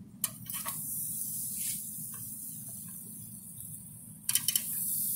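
Barbecue-sauced ribs sizzling on the hot grate of a barrel grill as they are laid down with metal tongs. A few sharp clicks of the tongs on the grate come near the start and again about four seconds in, when the sizzle grows louder.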